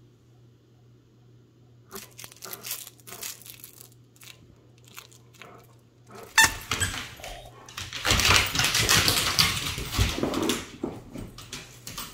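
Dog tugging on a plush turtle toy held by a hand: the toy's fabric rustling and crinkling. Scattered short rustles at first, then loud, dense rustling from about six seconds in that eases off near the end.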